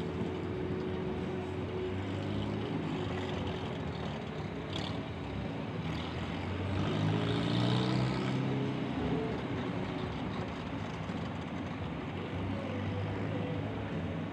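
Tractor engine running steadily, revving up about six seconds in to a louder peak near eight seconds, then settling back.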